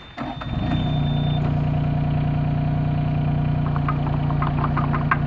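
Yanmar mini excavator's diesel engine starting up about half a second in, then running steadily at idle, with some light clicking near the end.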